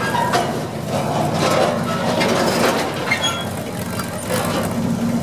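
The Walking Beast, a large mechanical walking machine, running with a steady engine rumble while it walks, with repeated sharp knocks and clanks from its legs and linkage.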